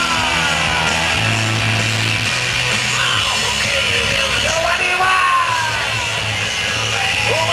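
Loud rock music with a singing voice and long held bass notes.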